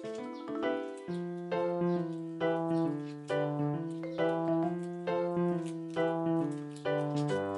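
Background piano music: notes struck at an even, unhurried pace, about two a second, over held bass notes.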